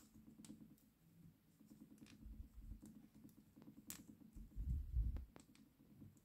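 Hard plastic action figure and its bat accessory being handled as the bat is pushed into the figure's hands. Scattered small plastic clicks and creaks, with two dull bumps, one about two and a half seconds in and a louder one about five seconds in.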